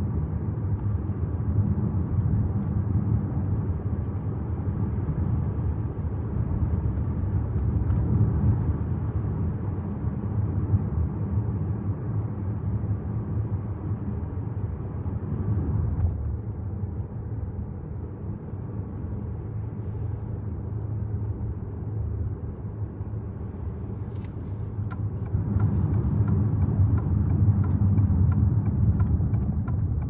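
Cabin noise of an Alfa Romeo Tonale on the move: a steady low rumble of road and engine that grows louder for a few seconds near the end. A faint regular ticking comes in near the end.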